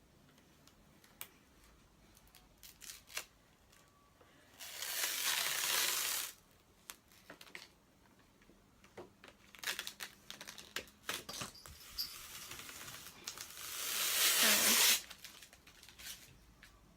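An iPad being worked into a two-piece protective case, a frame and a thick silicone shell: scattered clicks and taps, with two longer scraping rubs. The second rub builds up and then stops abruptly near the end.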